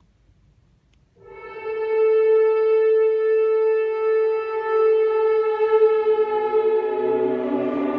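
Shofar sounding one long, steady blast that starts suddenly about a second in. From about six seconds in, lower held orchestral tones join beneath it.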